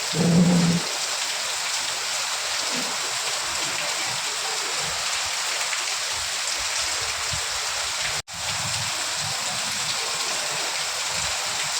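Steady heavy rainfall, an even hiss of drops. A short low thud sounds just after the start, and the sound drops out for a split second about eight seconds in.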